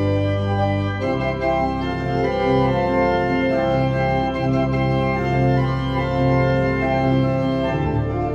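Church organ playing a free improvisation in sustained chords over held bass notes, the harmony shifting about a second in and again near the end.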